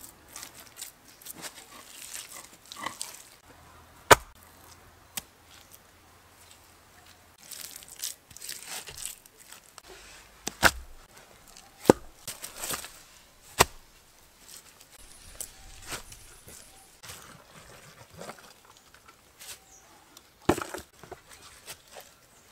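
Stones being handled and set into a dry-stone wall: a handful of sharp stone-on-stone knocks spread through, between the rustle of dry fallen leaves and the scrape of earth scooped by hand.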